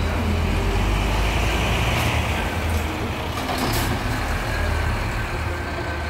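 Scania coach's diesel engine running as the bus pulls away, a deep steady rumble, with a short hiss about two seconds in.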